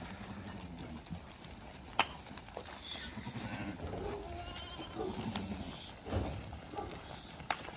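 A flock of Sakız-cross ewes bleating a few times as they are walked along, with two sharp clicks, one about two seconds in and one near the end.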